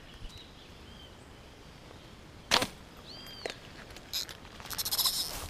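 A slingshot fishing shot: one sharp snap about two and a half seconds in, and near the end a quick, rapid ticking rush as braided line pays out from a Runcl SC330 spincast reel behind the arrow.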